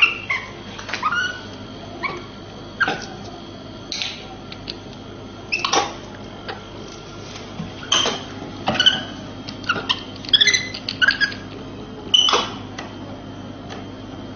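Scattered knocks, clinks and scrapes as a capuchin monkey handles a metal drink can and works at its top, mixed with short high chirps, over a steady low hum.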